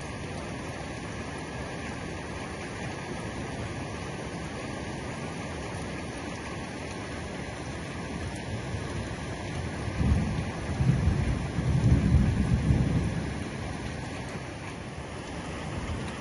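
Heavy rain pouring steadily onto the roof. About ten seconds in, a low roll of thunder rumbles for around three seconds and then fades.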